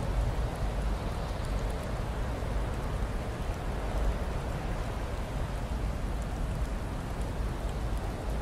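Blizzard wind blowing steadily: a continuous rushing noise with a heavy low rumble, and faint scattered ticks.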